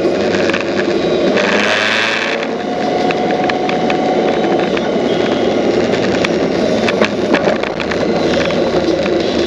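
Steady wind and road noise on a moving motorcycle, with the engine running underneath and scattered light rattles from the camera mount. A brief louder hiss comes about two seconds in.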